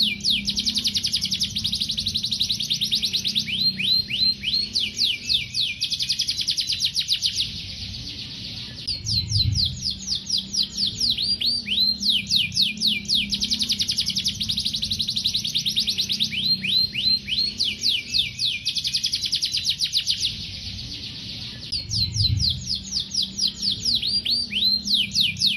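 Canary singing in long rolls of fast, repeated, downward-sweeping notes, pausing briefly twice.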